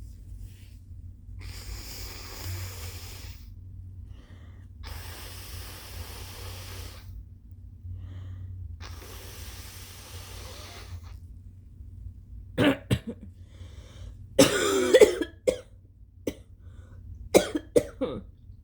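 A congested person giving three long, breathy nasal blows of about two seconds each, then a run of wet, phlegmy coughs, the loudest and longest coming about fifteen seconds in.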